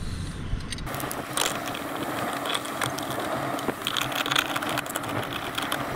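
Rapid mechanical clicking, starting about a second in and going on steadily, as an Erector pipe joint is fastened in place at an assist-grip mount.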